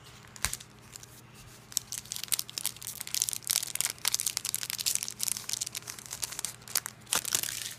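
Foil wrapper of a Pokémon trading-card booster pack being torn open and crinkled by hand: a single sharp click about half a second in, then dense crackling from about two seconds in, loudest just before it stops near the end.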